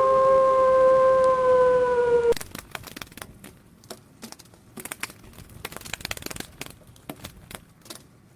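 A dog howling: one long, steady note that sinks slightly in pitch and cuts off about two seconds in. It is followed by faint scattered clicks and rustling.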